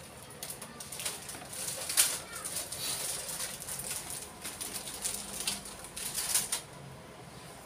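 Plastic snack sachets rustling and crinkling as they are handled and hung up, with irregular sharp crackles. The loudest crackles come about two seconds in and again near six seconds, and the rustling eases off shortly before the end.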